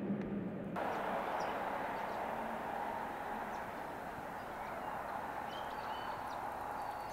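A distant truck's engine hum cuts off just under a second in, giving way to a steady outdoor hiss with scattered short, high bird chirps.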